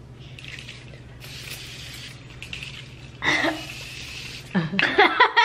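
Aerosol can of hydrating spring-water face mist spraying a fine mist: a soft hiss, then a longer, stronger hiss lasting about two seconds.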